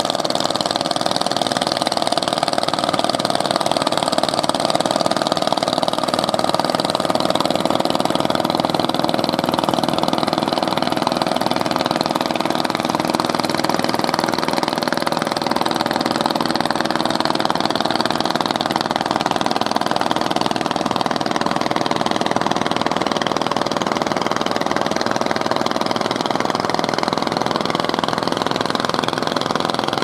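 Engines of wooden outrigger fishing boats running steadily, a continuous mechanical hum with an unchanging pitch.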